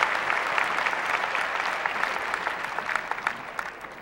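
Large theatre audience applauding, a dense patter of many hands clapping that gradually dies down toward the end.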